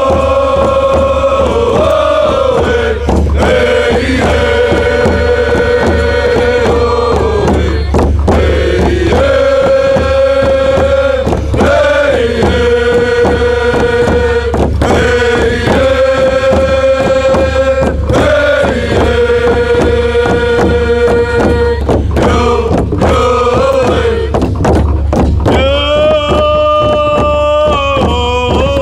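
Background music: one voice singing long, held chant-like notes in repeated phrases of a few seconds each, over a steady low bass.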